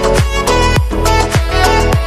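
Background music with a steady, fast beat and a bowed-string-like melody.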